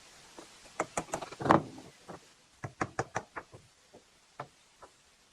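A series of irregular knocks and taps from work on a big shipping crate as it is taken apart and its lid lifted. There is a loud cluster about a second in, a few lighter taps around three seconds, and two single knocks near the end.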